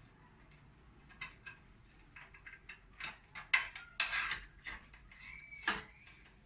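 Irregular plastic clicks, taps and rustles of cables being pushed and tucked into place inside a desktop PC case, the sharpest click near the middle, with a brief high-pitched squeak near the end.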